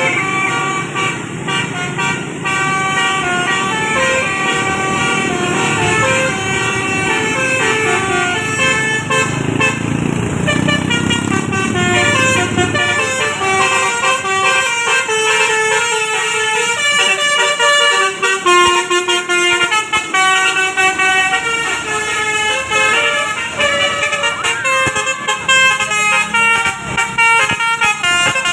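A bus's telolet basuri musical horn playing a fast tune of short, stepped notes, with the bus engine rumbling beneath it in the first half.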